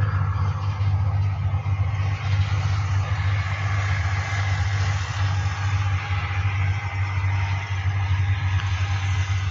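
Irrigation pump engine running steadily, a continuous low drone with a hiss of noise above it.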